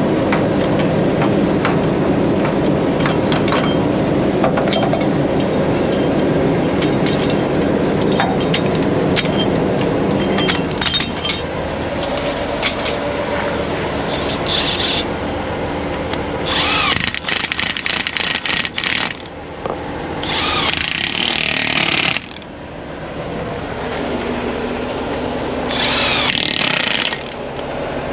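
A cordless impact wrench run in several hammering bursts in the second half, tightening a truck's driveshaft bolts at the rear-axle pinion yoke. Before the bursts an engine idles steadily, with light clicks of tools.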